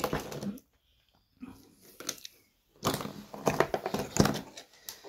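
Cardboard jigsaw puzzle pieces being handled and shuffled on a table: light clicks and rustles, busiest in the second half.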